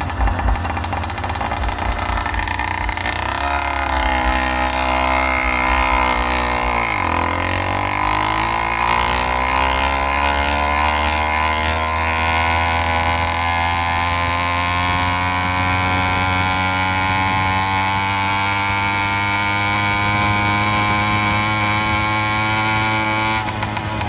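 Small engine of a motorized bicycle running under way: its pitch falls off sharply about a quarter of the way in as the throttle is eased, then climbs steadily for most of the rest as the bike speeds up again.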